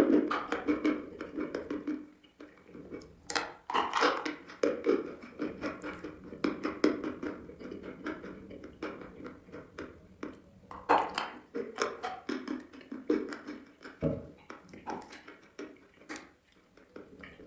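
Eating chalk being bitten and chewed: a dense, irregular run of dry crunches, loudest in clusters and thinning out near the end.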